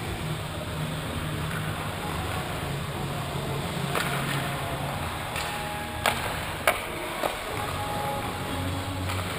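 Ice hockey game in an arena, heard from the goalie's end: a steady rink hum with a few sharp clacks of sticks and puck from the play, one about four seconds in and a quick run of three a little later.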